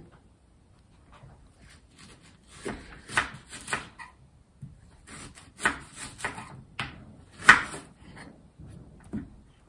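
A kitchen knife cutting through a peeled onion and onto a chopping board: a string of irregular short crunches and knocks, starting about two and a half seconds in, the loudest a little before the end.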